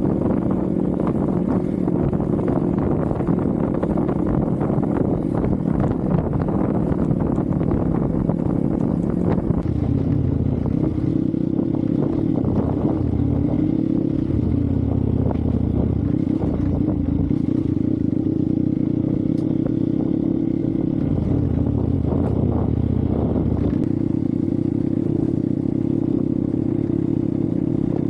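Hero Xpulse 200's single-cylinder engine running under throttle off-road. Its pitch steps up and down several times as the rider works the throttle and gears. Short knocks and rattles come through, most of them in the first part.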